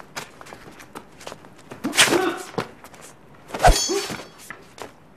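Sword-fight sound effects: two sudden flurries of blows, one about two seconds in and another about a second and a half later. Each comes with a short grunt from a fighter. The second flurry holds a heavy thud and a brief metallic ring of blades meeting. Light footsteps and scuffs on stone come before them.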